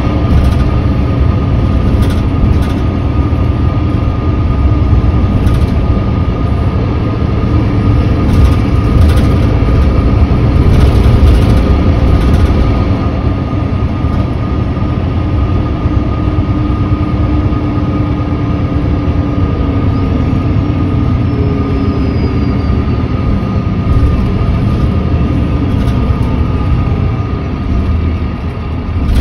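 Mercedes-Benz O530 Citaro C2 G articulated bus's OM936h diesel engine idling while stationary, a loud steady running with a high whine held over it and a lower hum that slowly sinks in pitch midway. It is an engine that the owner says no longer sounds healthy.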